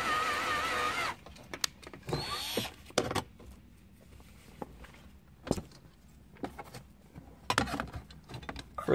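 Cordless drill boring through plastic console trim, running with a steady, slightly wavering whine that stops abruptly about a second in. After that come scattered light clicks and taps of parts being handled.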